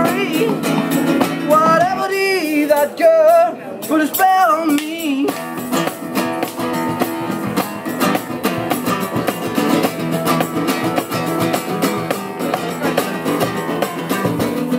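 Acoustic guitar strummed with a cajón slapped along to the beat, and a man's voice singing a wavering melodic line in the first few seconds. After that, fast rhythmic strumming and cajón strokes carry on without the voice.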